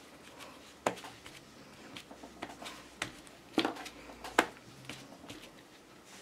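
Light clicks and taps of a clear stamp being handled, inked and pressed onto paper, a few separate taps with the sharpest about a second in and two close together between three and a half and four and a half seconds.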